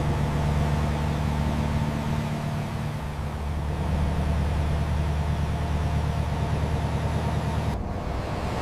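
Vehicle engine running steadily, a low hum over a hiss, cutting off suddenly near the end.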